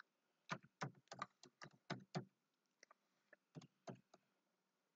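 Computer keyboard typing, faint: a quick run of about nine keystrokes, a pause of over a second, then a few more keys.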